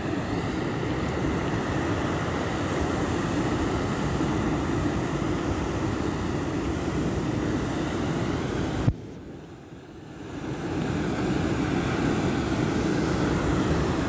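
Rough surf breaking on a pebbly beach with wind buffeting the microphone: a steady rushing roar. About nine seconds in there is a click, the roar drops away abruptly, then it swells back over about two seconds.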